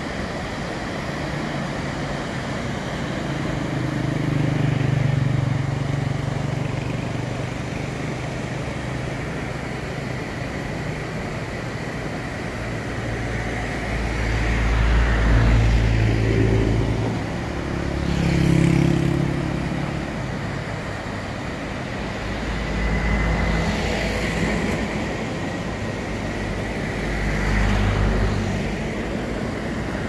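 Vehicles driving past on a road one after another, their engine hum swelling and fading about five times, over a steady rushing noise from a fast, whitewater mountain river.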